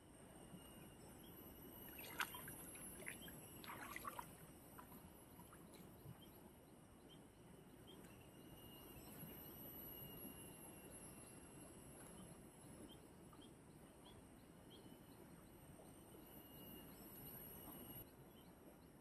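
Faint, steady flow of a river with a high hiss above it, and a few sharp clicks and knocks between about two and four seconds in.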